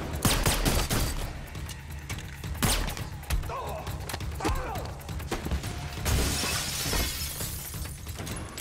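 Film fight sound effects: a series of heavy blows and crashes, with glass shattering about six seconds in, over a low music score.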